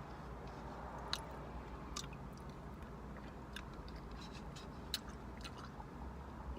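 A person chewing chicken noodle soup close to the microphone: faint, scattered wet mouth clicks about once a second over a low steady hum.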